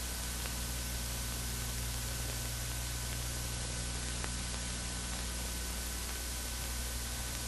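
Steady hiss and low electrical hum of an old film soundtrack, with a faint steady high tone and no other sound.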